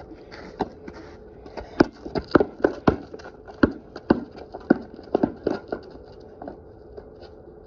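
Basketball being dribbled on a concrete driveway: a run of irregular thuds as the ball hits the concrete, thickest in the middle and thinning out near the end.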